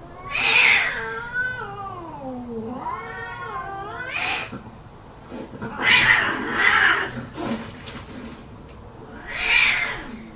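Cat-fight-like yowling: long wavering wails that slide down and then back up in pitch, broken by five harsh hissing snarls, the loudest near the start, around the middle and near the end.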